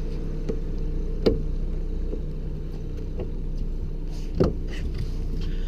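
A boat's motor running steadily at slow trolling speed, a low even hum, with two sharp clicks about a second in and again near the end.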